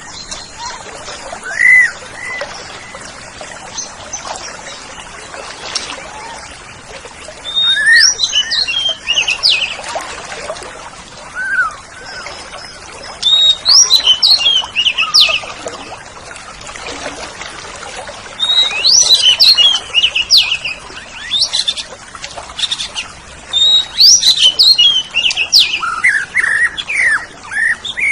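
Oriental magpie-robin (kacer) singing: loud phrases of fast, sharply gliding whistled notes come in four bursts about five seconds apart, with softer single whistles in between.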